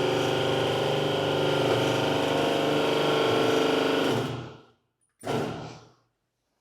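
Powered drive of a homemade cold-forging bending machine running steadily with a constant hum and whine as it bends a profile-tube scroll, stopping about two-thirds of the way through; a short second run follows just after.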